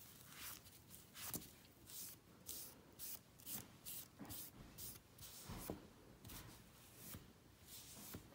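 A small knife blade scraped back and forth across a Dowellife knit cut-resistant glove, a quick series of faint, hissy strokes at about two a second.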